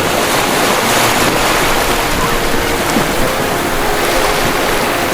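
Ocean waves breaking as a continuous rushing surf, steady and loud.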